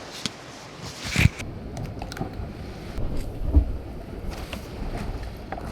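Low rumbling noise of water and wind on the camera's microphone, with a few knocks and thuds, as a diver gets into the sea.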